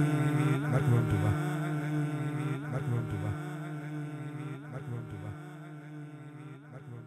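Droning music, a steady held low tone with short sliding notes about once a second, fading out gradually.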